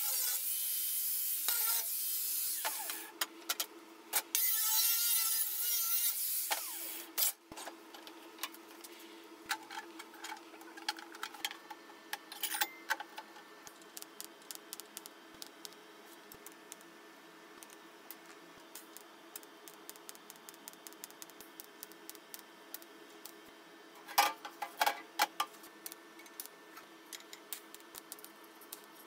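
Angle grinder cutting sheet steel in two passes over the first seven seconds, the second with a wavering whine. Then a quieter stretch of welding: a steady low hum with scattered crackles and ticks, a busier cluster near the end.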